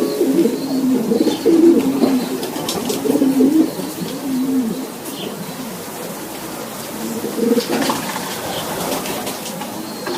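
Racing pigeons cooing: low, warbling coos that run through the first few seconds and then grow quieter.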